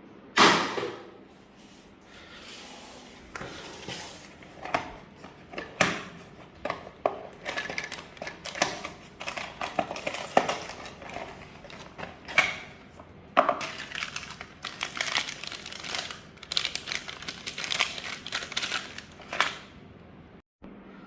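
A parcel being handled in a drop test: a sharp hit about half a second in, then irregular knocks, clatter and crinkling of packaging.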